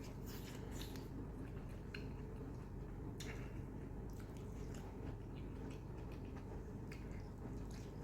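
Close-up wet chewing and biting of mutton and curry-soaked roti, with scattered mouth clicks and smacks over a steady low background hum.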